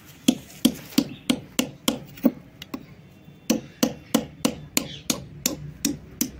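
A hammer striking the back of a long knife blade to drive it through a slab of soft white shale stone and slice it. Sharp metal knocks come about three a second, with a brief pause about halfway through.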